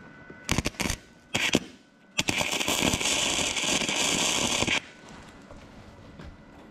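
Wire-feed welder arc crackling while welding steel: a few short starts in the first second and a half, then one steady bead of about two and a half seconds that cuts off suddenly.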